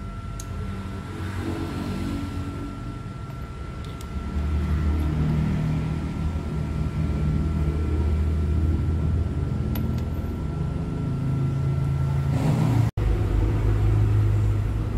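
Background music carried by deep bass notes that step up and down in pitch, with a brief dropout near the end at an edit.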